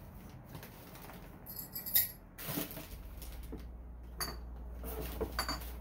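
Hard objects clinking and knocking a few times, irregularly, as items are rummaged through and moved about, some clinks ringing briefly.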